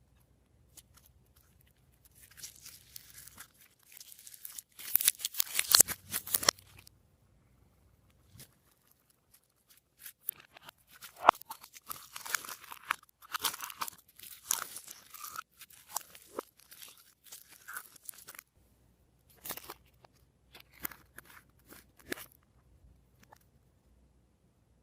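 Glossy slime being squished, stretched and pressed by hand, giving irregular crackling and popping. The crackles come in spells, loudest about five seconds in and again through the middle, thinning to scattered pops near the end.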